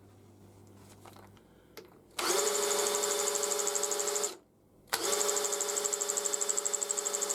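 Power drill spinning the shafts of a rebuilt BSA B31 gearbox in two runs of about two seconds each, with a short pause between: a steady whine that starts and stops abruptly. The gears turn freely now that the end float is shimmed to about 4 or 5 thou.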